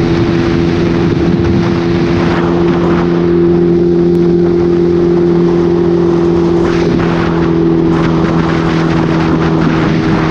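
Honda Rebel cafe racer motorcycle engine running at an unchanging pitch while cruising at steady speed, with a broad rush of wind and road noise over it.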